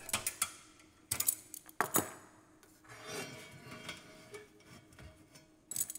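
Sharp metallic clicks and knocks of sheet-steel damper frame profiles and a corner piece being fitted together and gripped with locking pliers, with softer metal rubbing in between.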